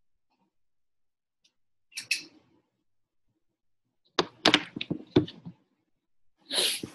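Silence broken by a few short clusters of sharp knocks and clicks: one about two seconds in, several in quick succession a couple of seconds later, and another near the end, heard over a video-call connection.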